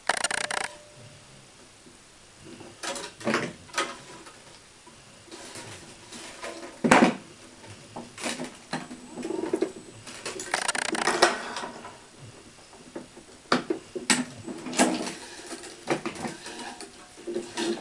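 Tennis string being woven through the main strings and pulled through the racket's grommets: irregular swishing, rubbing strokes of string on string, with an occasional sharp click.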